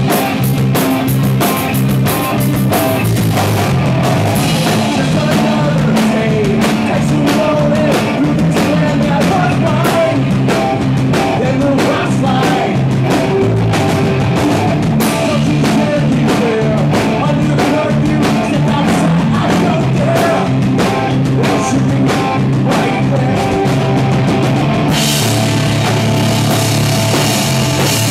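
Live rock band playing: drum kit, electric bass and electric guitar, with a steady bass line under regular drum hits. The cymbals come in more strongly near the end.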